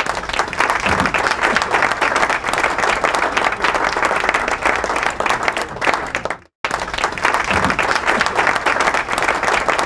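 A large crowd applauding, dense steady clapping. About six and a half seconds in it drops out to silence for a moment and starts again at full strength.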